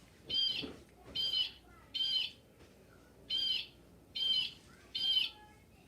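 Audubon plush blue jay's built-in sound box playing a recorded blue jay call: six harsh, high calls of about half a second each, in two sets of three.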